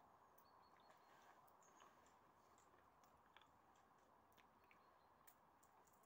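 Near silence: faint outdoor background hiss with a few scattered faint clicks.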